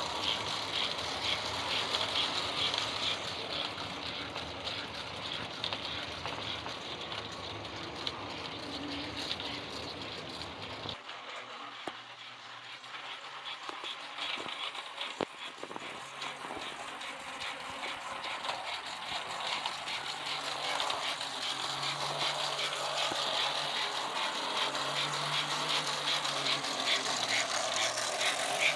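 S-gauge model steam locomotive, a modified American Flyer, running on its track: a steady whir of motor and gears with a fast, even rattle of ticks.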